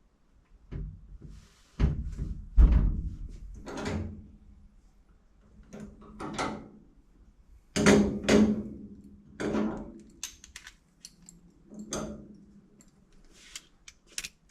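Irregular metallic knocks and clunks, about eight to ten spread over the stretch, some ringing briefly: tools and seat hardware being handled while the bench seat frame of a Corvair 95 Loadside is unbolted.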